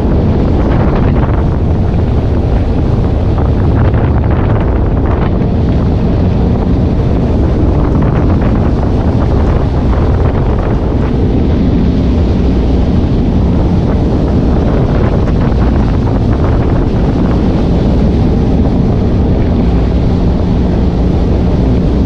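Wind buffeting the microphone on a moving jet ski, over the steady drone of its engine and the rush of water.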